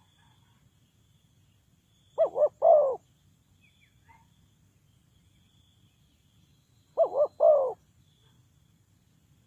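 Spotted dove cooing: two calls about five seconds apart, each made of two short coos followed by a longer third note.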